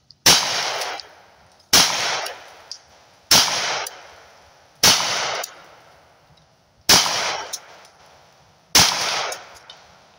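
Six single shots from a Hi-Point .45 ACP carbine, fired one at a time about every one and a half to two seconds. Each shot has a short ringing echo after it.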